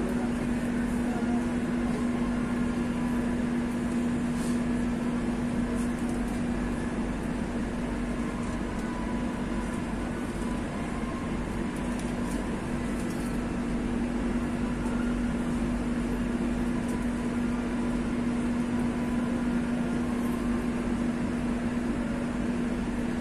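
Steady hum inside a Madrid Metro Line 2 carriage standing at a station: the car's onboard equipment running, with one low even tone over a constant noise.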